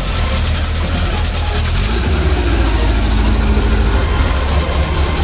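A vehicle engine idling steadily, with a low, even pulse.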